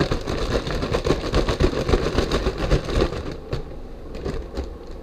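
Plastic zip bag crinkling and rustling as it is handled, a rapid crackling for about three seconds, then a few separate light clicks.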